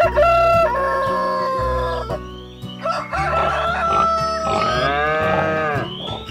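Rooster crowing: a long, held cock-a-doodle-doo right at the start, then more crowing from about three seconds in, over background music with a steady bass.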